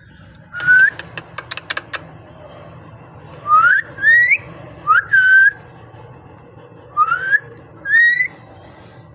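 Parrot whistling: about seven short rising whistles, a few ending in a warbling upward trill. A quick run of sharp clicks comes about a second in.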